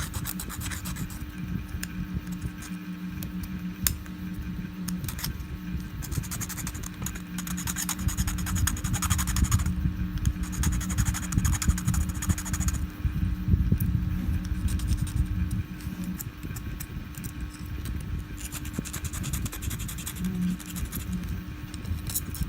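A hand tool scraping and scratching at a 3D-printed plastic model in irregular strokes, cleaning off leftover support material. A steady low hum runs beneath it and stops about two-thirds of the way through.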